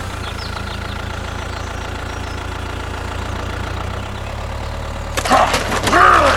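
Tractor engine idling steadily. About five seconds in, a louder sound with arching, rising-and-falling pitch joins it.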